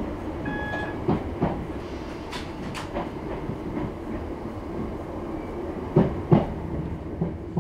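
Train wheels running slowly over the rails, heard from inside a carriage: a steady rumble with sharp knocks as the wheels cross rail joints. The knocks come in pairs, once about a second in and again near the end.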